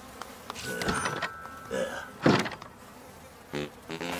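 Cartoon flies buzzing around a compost heap, with a loud single thump about two seconds in and a short grunt near the end.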